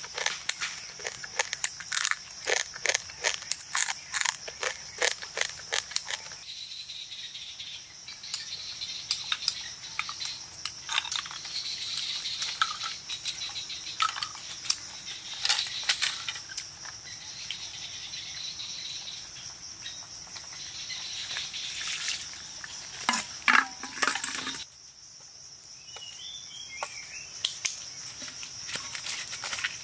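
Steady high insect drone of the forest, with quick crisp crunches in the first few seconds, then scattered snaps and knocks of dry sticks being laid over a fire bed, loudest a little after halfway.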